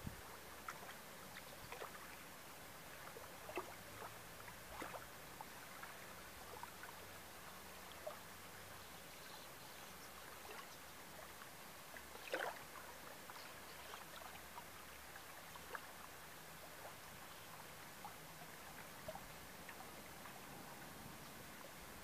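Faint, gentle water lapping, with small scattered drips and plinks; one slightly louder splash about halfway through.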